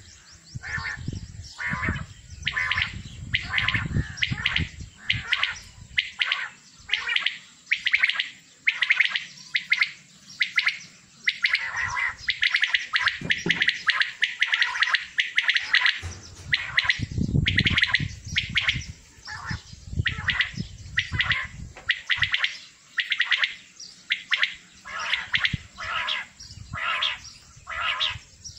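Many caged male quails calling over one another, a dense run of short repeated calls with a low rumble underneath at times.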